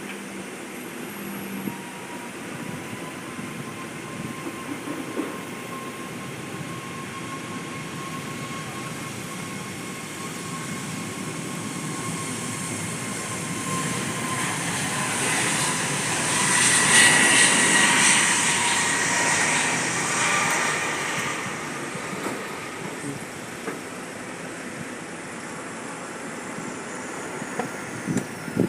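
Jet aircraft passing: a whining engine note over a broad rush that builds to a peak a little past halfway and then fades away.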